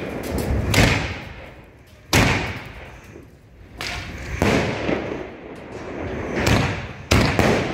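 Aerial fireworks going off in a series of sharp bangs, about five loud ones a second or two apart, each shot leaving a shower of sparks.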